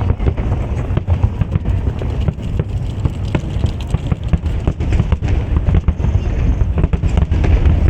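A fireworks display going off in a continuous barrage: many quick sharp bangs close together over steady deep booms.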